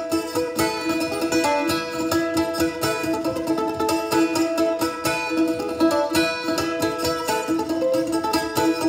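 Instrumental break picked on a steel-strung, bouzouki-type instrument: a quick, busy melody line over a constantly ringing low drone note.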